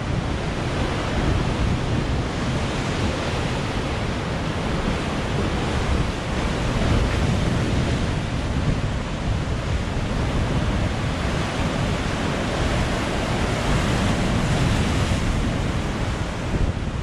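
Wind buffeting the microphone over the wash of sea surf: a steady rushing noise with a deep rumble underneath.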